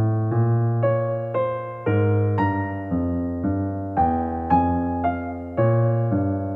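Background piano music: single notes struck about twice a second, each fading away, over held low bass notes.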